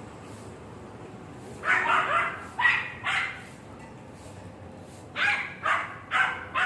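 A dog barking in two runs of quick barks, about five, then after a pause of about two seconds, four more.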